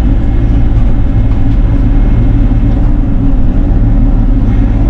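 Bobcat E42 mini excavator's diesel engine running steadily, a loud, even low drone.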